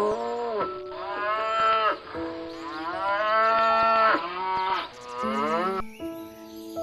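Cow mooing, four drawn-out moos one after another, the third the longest, ending about six seconds in. Steady background music runs underneath.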